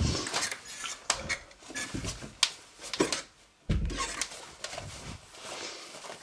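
Irregular knocks, clicks and rustling, with a few low thumps, about 2 s in and again near the middle.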